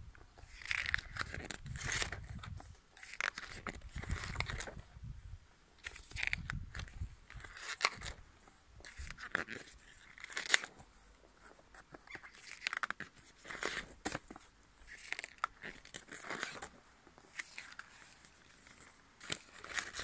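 Paper pages of a spiral-bound wall calendar being lifted and flipped over by hand, one after another about every second or two, each turn a short papery swish. A low rumble runs under the first few seconds.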